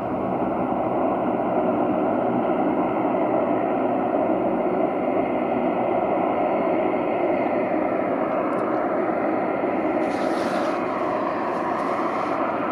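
Jet engines of a twin-engine wide-body airliner rolling out on the runway after landing, a steady, loud roar with no break.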